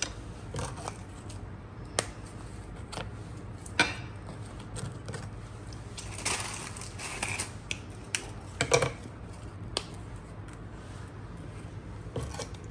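Graham crackers being snapped apart by hand and set down in a glass baking dish: scattered sharp clicks and snaps, with a longer crackling stretch about six seconds in.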